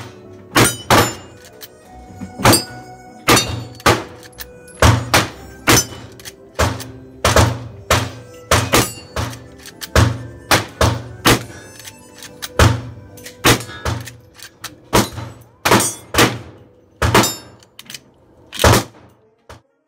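Repeated gunshots, roughly one to two a second at irregular spacing, from several shooters, with steel gong and plate targets clanging and ringing on after hits.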